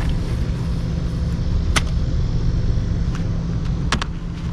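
A steady low machine hum, with two sharp clicks about two and four seconds in.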